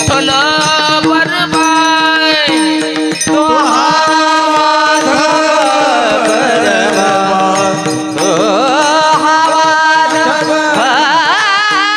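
Varkari kirtan singing: a man's voice holds long, ornamented notes with wavering pitch bends over a steady drone, with light percussion strokes underneath.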